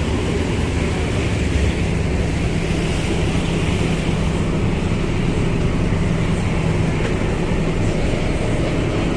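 Ferry's engine running steadily under way, a low even hum under a constant rush of wind and water.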